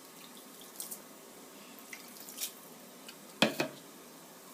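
Water dripping onto damp couscous in a bowl as a hand rubs the grains, a few sharp drips over a faint rustle; the loudest pair comes about three and a half seconds in.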